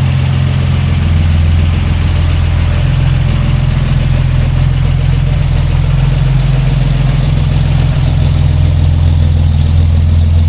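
1946 Chevy truck engine idling steadily through a new dual exhaust with glass-pack mufflers and dual 2-inch pipes, a deep even exhaust note.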